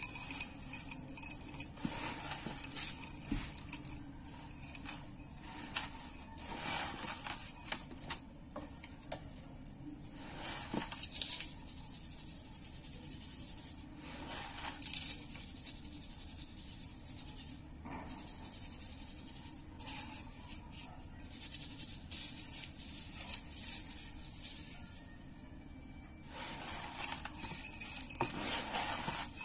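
Dry sand being handled in and around a small terracotta pot: gritty scraping and rustling as it is scooped and packed, coming in bouts with quieter gaps. Near the end there is a denser hiss of grains poured from the hand into the pot.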